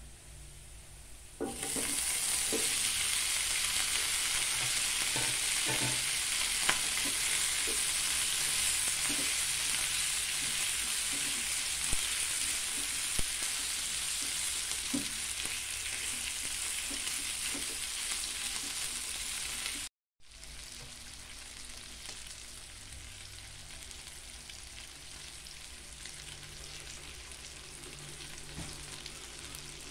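Chicken feet sizzling in hot oil with garlic and onion in a nonstick frying pan, stirred with a spatula that knocks now and then. The sizzle starts suddenly about a second and a half in and is loud; after a brief dropout about two-thirds through it carries on more quietly.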